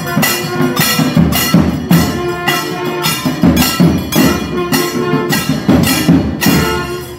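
Temple procession percussion: drums and cymbals struck in a steady beat about twice a second, over a held tone.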